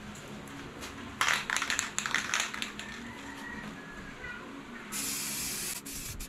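Aerosol spray paint can: a stretch of rapid, loud, clattering noisy strokes about a second in, then a steady spraying hiss for about a second starting near five seconds in.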